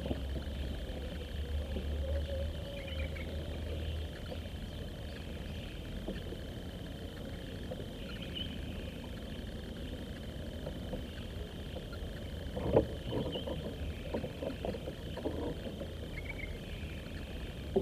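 Quiet outdoor ambience in a small wooden fishing boat. A low rumble fades after about four seconds, a faint steady high hum runs throughout with a few short chirps, and a sharp knock about two-thirds of the way in is followed by several lighter knocks of fishing gear being handled against the wooden hull.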